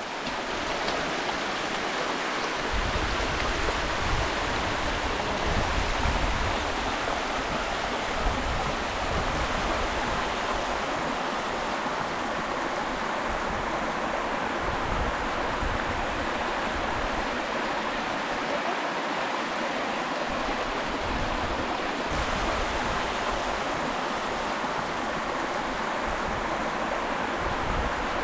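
A small river rushing over sandstone in shallow rapids, a steady unbroken splashing, with low buffeting now and then.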